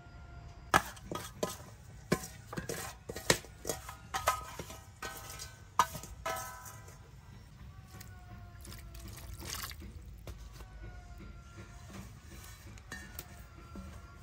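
Water splashing and dripping, with a quick run of sharp knocks and clatters in the first half that then settles to quieter handling.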